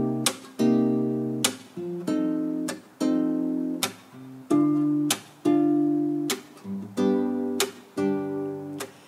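Acoustic guitar strumming chords with no voice, each chord ringing and then damped, roughly one strum a second, with the chords changing as it goes.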